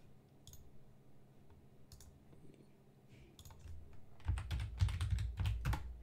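Typing on a computer keyboard: a few scattered key clicks, then a quick run of keystrokes with low thuds in the last two seconds.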